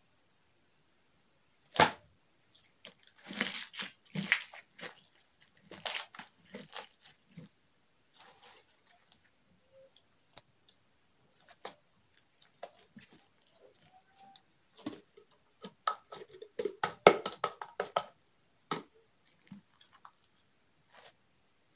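Pink glitter slime being squeezed, pressed and pulled apart by hand on a table, making irregular wet squelches and crackling clicks. A sharp slap comes about two seconds in, and the squelches bunch up thickly near the end.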